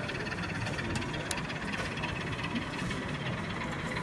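Model train running on a layout: a steady mechanical engine-like hum with a few light clicks about a second in.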